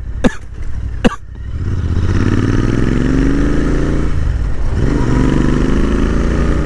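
Royal Enfield Interceptor 650's parallel-twin engine pulling away and accelerating, rising in pitch, easing off briefly about four seconds in, then running steadily at road speed. A couple of sharp knocks come in the first second or so.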